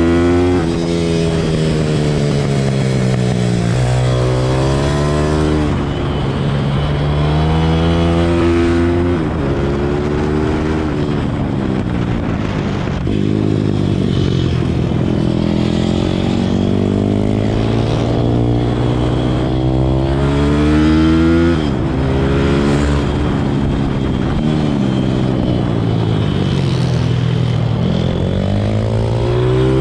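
Pit bike engine heard from on board at racing pace, its revs climbing and dropping over and over as the rider accelerates down the straights and backs off for the corners.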